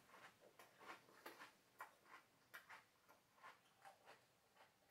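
Faint sounds of eating cereal with milk: soft clicks and crunches about two to three a second, from chewing and the spoon in the bowl.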